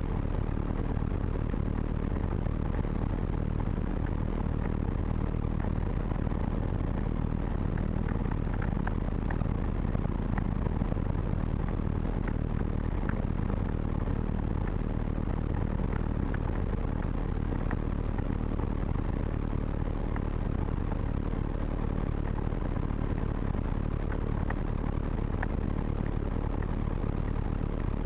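Calidus gyroplane's engine and pusher propeller throttled back to idle, a steady low drone with a rushing of air over it, heard from inside the enclosed cockpit while the gyroplane descends to land.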